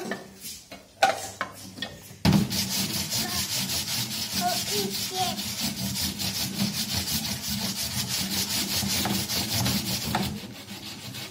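A scrubbing brush rubbed rapidly back and forth over a plastic ride-on toy car, a steady run of scratchy strokes that starts about two seconds in and stops near the end. A few light knocks come before it.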